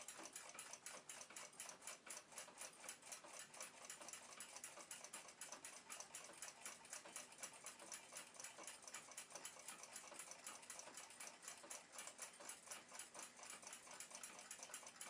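Faint, fast, even ticking of a 1949 German flip clock's 7-jewel movement running.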